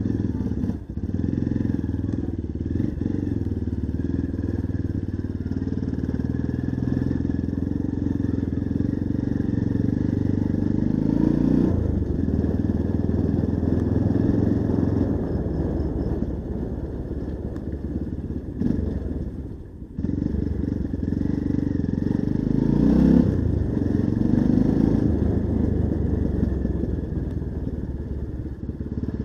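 Honda XR 150's single-cylinder four-stroke engine running while the bike is ridden slowly. The engine note swells about 11 seconds in and again about 23 seconds in, with a brief dip just before 20 seconds.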